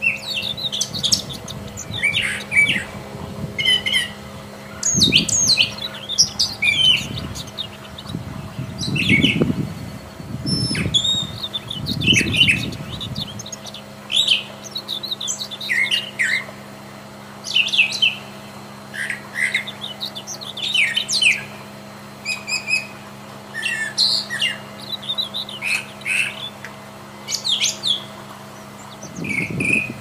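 Brown thrasher singing: a long run of short, varied, high phrases with brief pauses between them. A low rumble sits under the song for several seconds in the first half.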